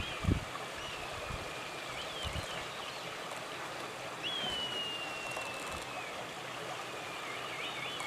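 Red kites calling overhead: thin, high whistles, some quavering rapidly up and down, and one long whistle slowly falling in pitch about four seconds in, over a steady background rush.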